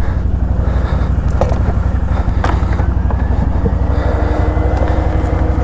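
ATV engine running steadily close by, a rapid low pulsing with a few light clicks; a second steady, higher tone joins a little after three seconds in.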